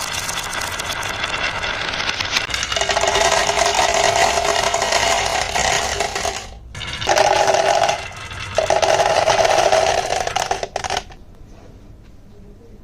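Toy vehicles rolling down HABA wooden ramps, their wheels rattling fast and loud on the wood, with a steady hum joining about three seconds in that breaks off briefly twice. The rattling stops abruptly about two seconds before the end.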